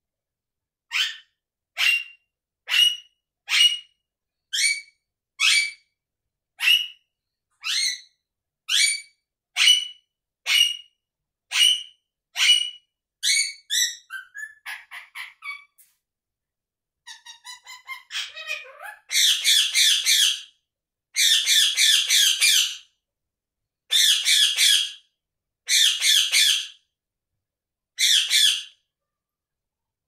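Indian ringneck parakeet calling: a sharp single call about once a second, then a quick run of softer chirps and chatter. After that come five long harsh screeches in the second half.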